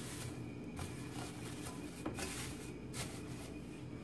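Thin plastic bags rustling and crinkling, a few soft crinkles, as they are pressed and smoothed into a round aluminium cake pan over a faint steady background hum.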